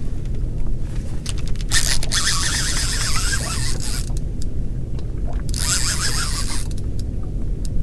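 Multiplier fishing reel being cranked hard in two spells, its gears grinding, while a hooked fish pulls on the bent boat rod.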